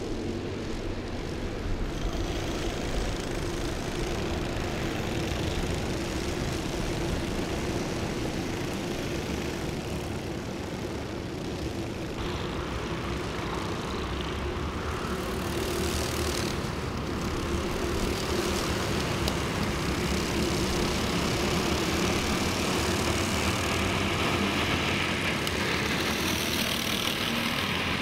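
A pack of Honda cadet racing karts running on track, their small four-stroke engines droning together. The sound swells louder near the end as the karts come closer.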